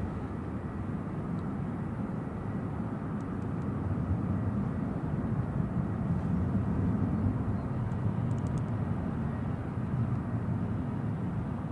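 Steady low rumble of a distant jet airliner, with wind buffeting the microphone.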